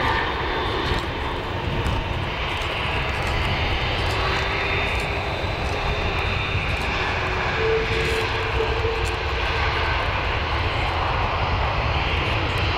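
Rolls-Royce Trent 772B turbofans of an Airbus A330-200 on landing: a steady jet rumble with a high engine whine as the airliner flares, touches down and rolls out along the runway.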